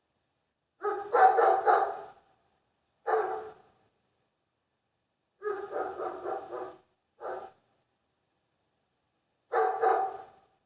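Dog barking in short runs of quick barks, with single barks between them and silent gaps.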